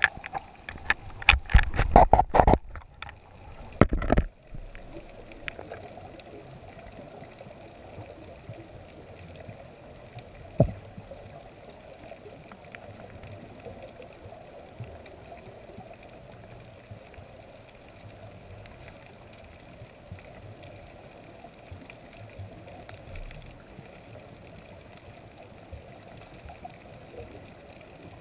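Underwater ambience heard through a submerged camera: a steady, muffled hiss of moving water. A cluster of loud knocks and bumps fills the first few seconds as the diver heads down, and a single sharp knock comes about ten seconds in.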